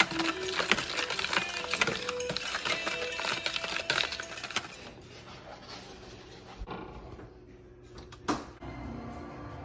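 Wire balloon whisk beating a frothy liquid in a plastic mixing bowl: rapid, busy clicking and rattling of the wires against the bowl for about four and a half seconds. After that it is quieter, with a single knock about eight seconds in.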